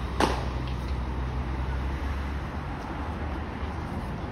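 City road traffic: a steady low engine hum over even road noise, with one sharp knock about a quarter second in.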